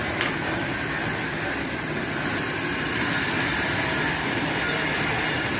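Sawmill's log saw and carriage machinery running: a loud, steady mechanical rush with a high whine held on one pitch.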